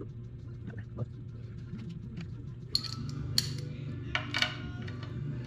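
Background music with a steady low beat, over which a few sharp metallic clinks of hand tools on the engine ring out from about halfway through.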